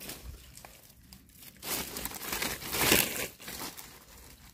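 Dry leaf litter and twigs crackling and rustling as a knife and gloved hands dig a mushroom out of the forest floor, swelling in the middle and loudest about three seconds in.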